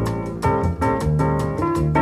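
Background music: an instrumental track with steady notes and a regular beat.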